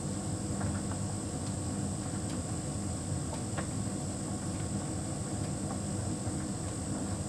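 Hotpoint heat pump tumble dryer running: a steady low hum with a thin high-pitched whine over it and a few faint clicks.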